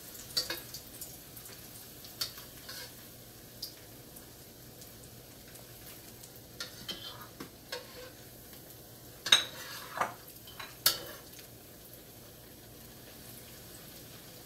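Bread slices frying in a wok with a steady faint sizzle, while a spatula clicks and scrapes against the pan as the slices are turned. The loudest knocks come about nine and eleven seconds in.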